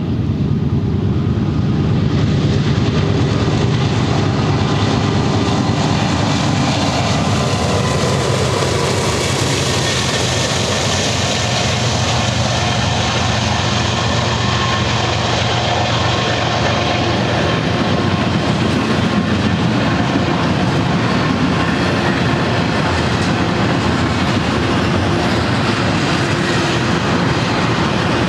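Diesel freight train passing close by: the GE locomotives' engines rumble in the first seconds, then the double-stack intermodal cars roll past with steady wheel-on-rail noise and clickety-clack.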